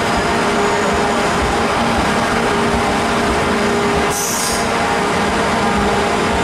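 Train running steadily at a station platform, a loud drone with a few held tones, with a short hiss of air about four seconds in.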